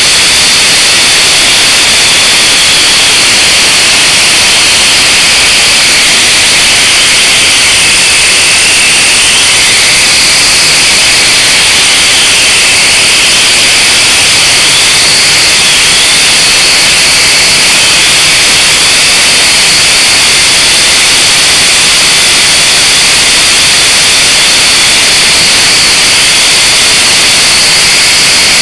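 Blade 180QX quadcopter's motors and propellers heard through its onboard camera's microphone: a loud, steady, high-pitched hissing whine that wavers slightly partway through.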